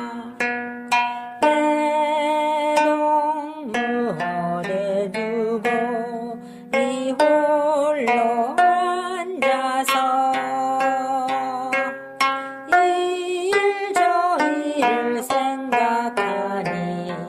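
Gayageum, the Korean plucked zither, playing a melody: a run of plucked notes, several of them bent and wavering in pitch.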